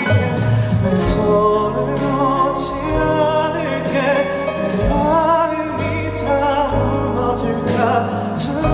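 Live pop ballad played by a band, with sustained chords, a steady bass line and a wavering sung melody, leading into the verse.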